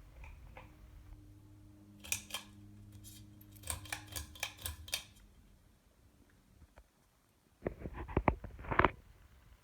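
Harbor Breeze Caratuk River ceiling fan's motor humming with a low, steady tone that stops about six and a half seconds in. Sharp clicks come about two seconds in and several more a little later, then a quick cluster of clicks and rattles near the end.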